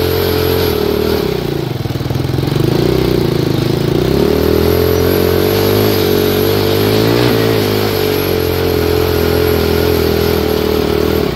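Tractor engines running hard under load in a tug of war: a Massey Ferguson 240 diesel and a small handmade mini tractor built as a Ford 3600, its wheels spinning in dirt. The engine note sags about a second and a half in and climbs back.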